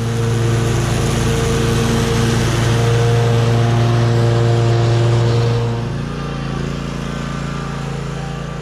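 Gravely zero-turn riding mower's engine running steadily with its blades cutting tall, wet grass, loud while the mower passes close by. About six seconds in it turns quieter and its tone shifts as the mower drives away.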